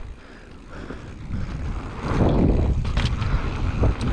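Mountain bike rolling down a snowy trail, with wind rushing over the camera's microphone and the tyres and frame rumbling. It gets louder about two seconds in, with a couple of sharp knocks from the bike.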